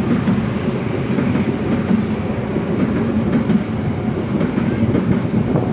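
Argo Lawu passenger train passing, its wheels running over the rails in a loud, steady rumble with a clickety-clack.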